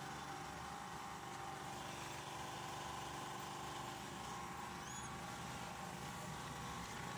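Office photocopier running steadily through a copy job: an even mechanical hum with a constant high tone.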